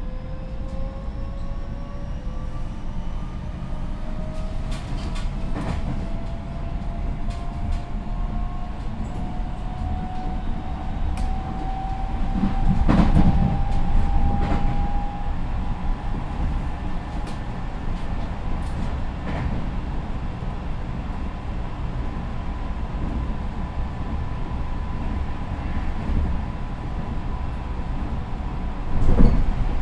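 Tokyo Metro 10000 series electric train accelerating, heard inside the car. Its Mitsubishi IGBT VVVF inverter and traction motors give a whine that rises steadily in pitch for about the first half, in the train's high-acceleration mode. After that a steady higher tone carries on. Wheel clicks over rail joints run throughout, with a louder rumble a little before halfway and a loud knock just before the end.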